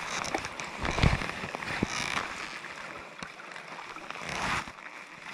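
Water of a small mountain trout stream running, with a few brief louder swells of noise and a low thump about a second in.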